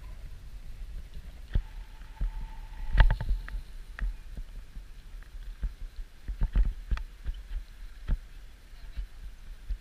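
Irregular sloshes and knocks from wading in shallow water over a coral reef flat, the sharpest about three seconds in and a cluster between six and seven seconds, over a steady low rumble.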